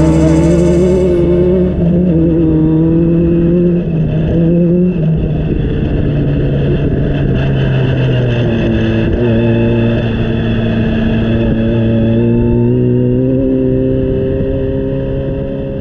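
Race car engine running hard at high revs. Its pitch holds, drops in steps twice, then climbs slowly, easing slightly in level toward the end.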